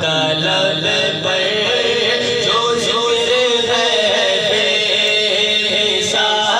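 A man's voice chanting a devotional naat in long, wavering held notes, amplified over a sound system.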